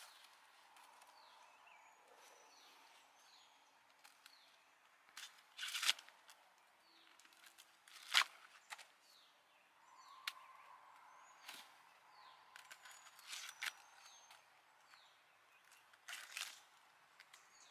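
Birds chirping in the background, short falling calls repeating throughout, with several sharp crackling snaps and rustles. The snaps are loudest about six and eight seconds in, and again near the end.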